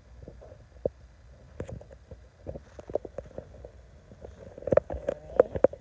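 Scattered knocks, taps and rubbing on a phone's microphone as the phone is handled and its camera is flipped. The knocks get busier and louder near the end.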